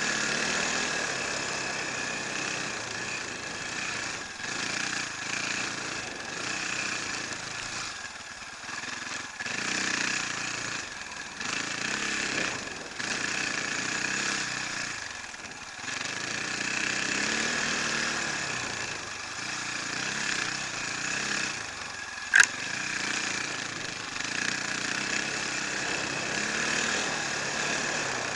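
Enduro motorcycle engine running under way, the throttle opening and closing so the sound swells and drops every second or two. A single sharp knock about three-quarters of the way through is the loudest moment.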